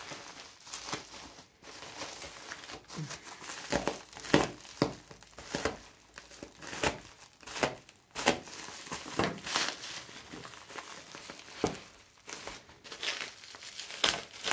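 Plastic bubble wrap crinkling and crackling as it is handled and cut open with a knife, with irregular sharper snaps and rustles of varying loudness.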